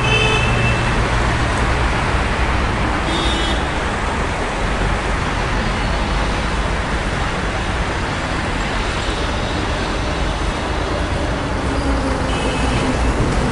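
Dense city street traffic: a steady wash of cars, buses and trucks passing, with a continuous low engine rumble. A few brief high-pitched tones cut through, once at the start, once about three seconds in, and again near the end.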